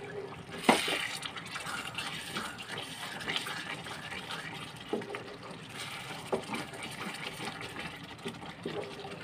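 A wooden spoon stirs chicken pieces through thick tomato gravy in a non-stick pot: wet squelching and scraping, with a few knocks of the spoon against the pot, the loudest about a second in.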